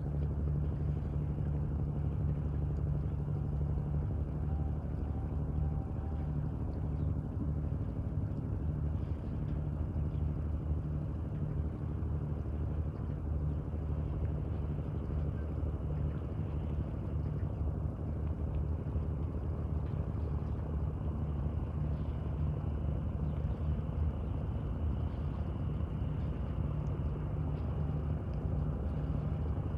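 Steady low drone of a loaded river cargo barge's diesel engine carried across the water, unchanging throughout.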